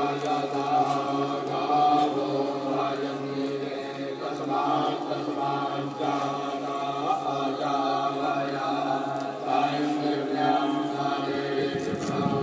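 Voices chanting Vedic mantras during a yagya fire ceremony, a continuous chant without a break.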